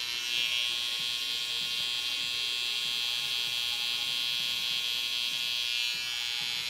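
Cordless T-blade hair trimmer running with a steady electric buzz as its blade cuts along the hairline around the ear. A brighter hiss comes in just after the start and eases about six seconds in.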